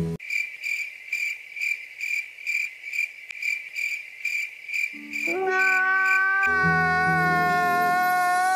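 Cricket-chirp sound effect: a steady high chirp repeating a little over twice a second, cutting in abruptly and running about five seconds. It is followed by a man's long high wailing cry, falling slightly in pitch, over a low hum.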